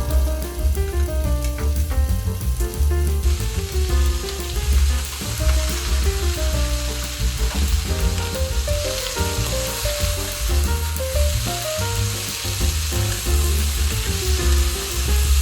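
Stir-fry sizzling in a hot pan, the sizzle growing louder about three seconds in, under background music with a strong bass line and a stepping melody.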